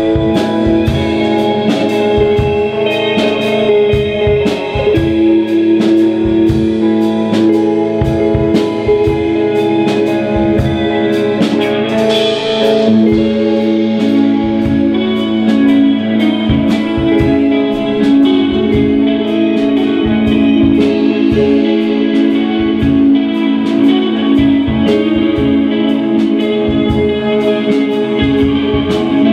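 Live rock band playing an instrumental passage: two electric guitars holding sustained, ringing chords and lines over a drum kit keeping a steady beat.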